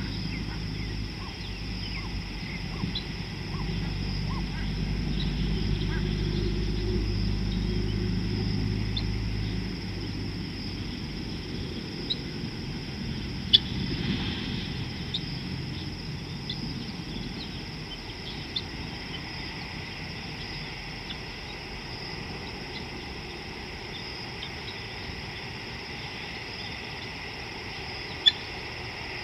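Wild outdoor ambience: a steady high chirring of insects with scattered short bird chirps over it. A low hum fades out about ten seconds in, and two sharp clicks come, one near the middle and one near the end.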